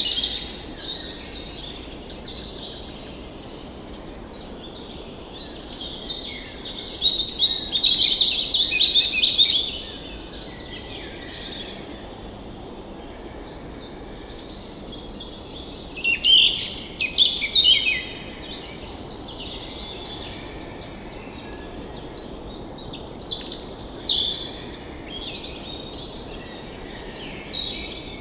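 Several songbirds singing and chirping in overlapping phrases, with louder bouts of song about a quarter of the way in, just past halfway and again near the end, over a faint steady rush of a forest stream.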